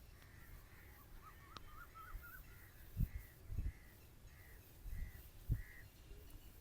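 Dull low thumps of hands working on a head during a massage, three of them, with birds calling in the background: a short call repeated about twice a second and a brief run of warbling chirps.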